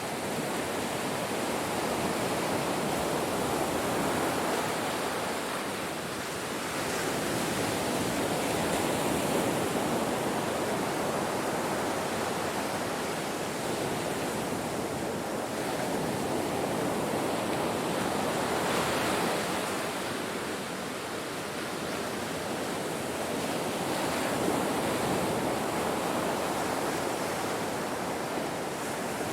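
Ocean waves breaking on a shore: a steady rush of surf that swells and eases as each wave comes in, every few seconds.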